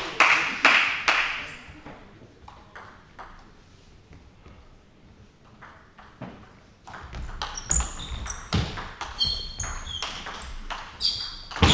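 A table tennis rally: the ball clicks sharply and quickly off bats and table, with short high squeaks of shoes on the sports-hall floor and low footfall thuds in the second half. Before that come about a second of loud noisy hall sound and then a quieter stretch with a few faint ball taps.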